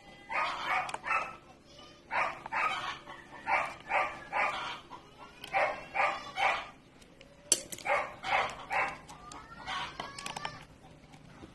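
Chickens calling over and over in short groups of two or three clucking notes. A single sharp crack about seven and a half seconds in is the loudest sound.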